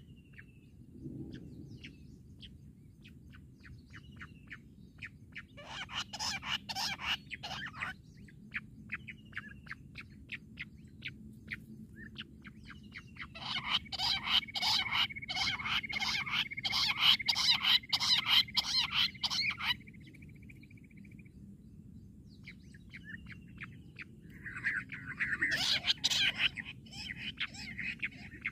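Jungle bush quail calling in three bouts of rapid, repeated harsh notes, the longest and loudest in the middle with a thin trill running under it.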